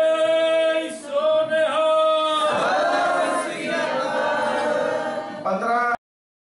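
Sikh jaikara: one man's voice through a microphone holds a long chanted call, then many voices of the congregation answer together in a sustained shout. The sound cuts off suddenly near the end.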